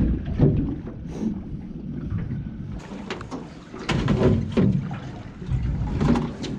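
Small boat drifting at sea: water lapping against the hull, with wind on the microphone and several short slaps between about three seconds in and the end.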